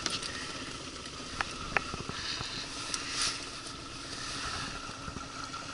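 Small boat motor running steadily, with wind rumbling on the microphone. Two sharp clicks about a second and a half in.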